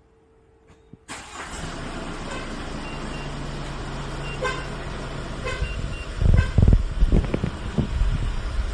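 Hyundai Porter 2 truck's diesel engine starting by remote start about a second in, then running steadily at idle, with a few faint short beeps. Loud low rumbles come and go between about six and eight seconds in.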